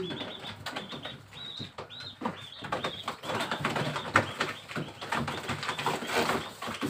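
Pigeons in a loft: short, irregular bursts of wing flapping and feather rustling with scattered clicks as the birds are handled.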